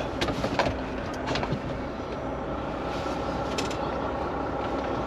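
Volvo VNL semi-truck's diesel engine running steadily as the truck creeps along, heard from inside the cab, with a few short clicks or rattles.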